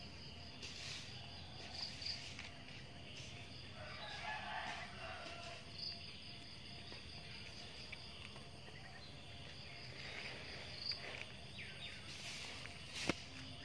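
Outdoor ambience: a steady high insect drone, with a distant chicken call about four seconds in and a single sharp click near the end.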